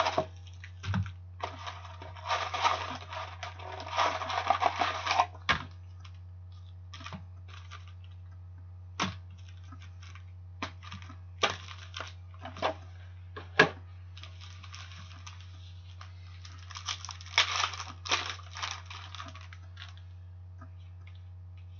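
Cardboard box of 2013-14 Contenders hockey card packs being opened and its packs handled: rustling and scraping of cardboard and pack wrappers near the start and again near the end, with single sharp taps in between as packs are set down one by one on the countertop. A steady low hum runs underneath.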